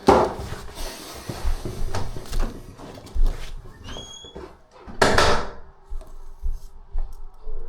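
Knocks, clatters and rustling of someone rummaging for a wrench among tools, with a brief high squeak about four seconds in.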